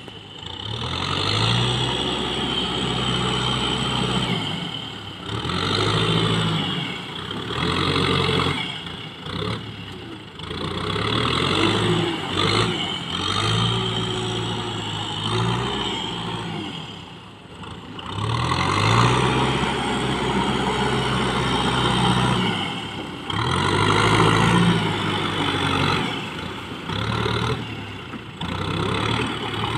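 Kubota tractor's diesel engine working hard under load as it pushes a front blade of mud through flooded paddy, its revs rising and falling again and again with short dips every few seconds.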